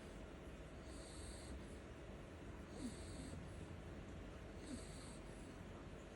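A sleeping pet snoring: three hissing breaths about two seconds apart, over a faint low rumble.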